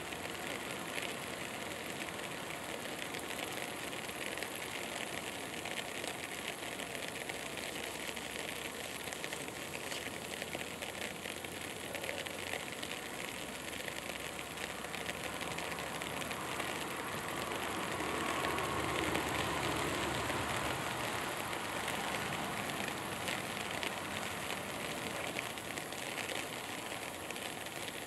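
Steady outdoor background noise with a fine crackle all through, swelling a little for a few seconds just past the middle.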